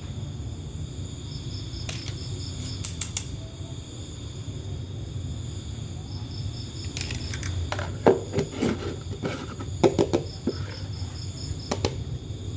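Insects chirping steadily in the background, with a low hum underneath. Sharp clicks come in twice near the start, and a run of clicks and knocks follows from about seven seconds in.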